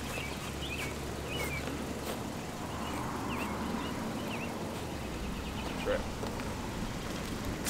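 Outdoor ambience: a steady low rumble, with a few short high chirps in the first half and a single knock about six seconds in.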